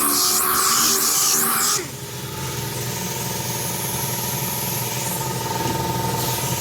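Background music that cuts off abruptly about two seconds in, followed by a steady mechanical hum, an air compressor running to supply the air sander.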